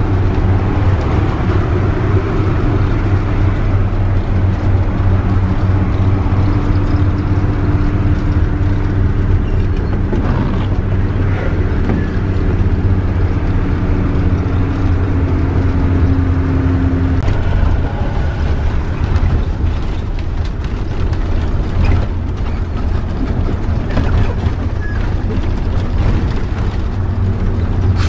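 Motorhome engine and road noise heard from inside the cab while driving: a steady low drone. A higher hum joins in for about ten seconds in the middle, then drops away.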